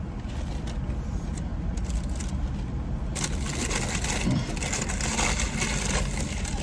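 Car engine idling, heard from inside the cabin as a steady low rumble. From about three seconds in, a louder scraping, rustling noise runs for roughly three seconds over it.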